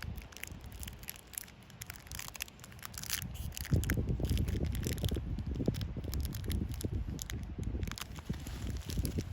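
Crinkling and tearing of a foil booster-pack wrapper being opened by hand, many small crackles. A low handling rumble comes in at about four seconds.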